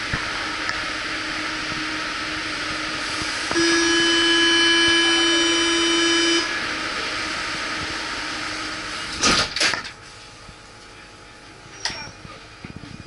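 Paris Métro train's door-closing warning buzzer, one steady buzz lasting about three seconds, followed a few seconds later by the doors shutting with two loud bangs close together. Once the doors are shut the hiss of the station drops away.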